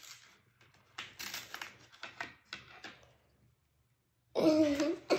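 Small plastic doll packaging and accessories being handled: a couple of seconds of crinkling and light clicking. A brief child's voice sound follows near the end.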